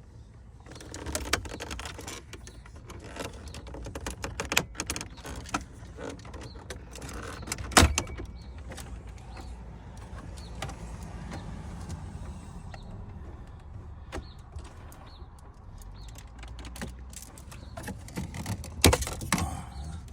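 Plastic dashboard trim of a Cadillac Escalade being pried loose and handled: scattered clicks and rattles of hard plastic, with a sharp snap about eight seconds in and a few more loud clicks near the end as clips let go.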